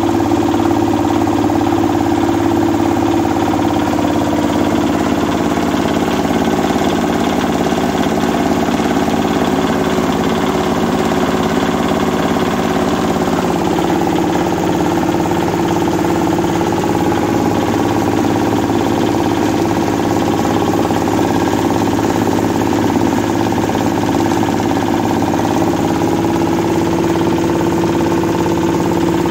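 Old 8 hp diesel engine running steadily under load, driving a rice mill as unhusked rice is fed through it: a loud, unbroken drone of engine and milling machinery.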